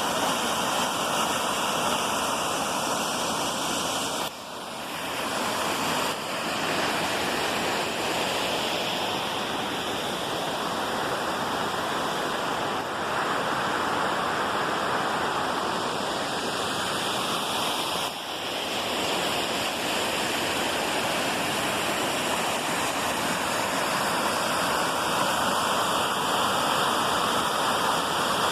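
Waterfall: a steady rush of falling water, dipping briefly in level twice.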